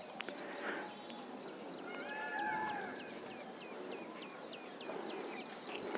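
Faint outdoor ambience: a bird calls a run of short, falling notes, about four a second, and a distant animal call is heard about two seconds in, just before the run starts.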